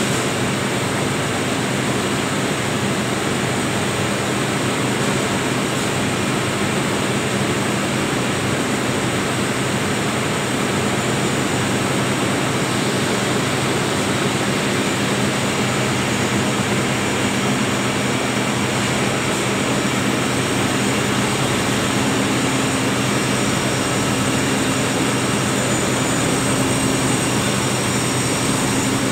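Cotton spinning-mill machinery running: a loud, steady din of dense hiss with a low hum and a few thin high whines.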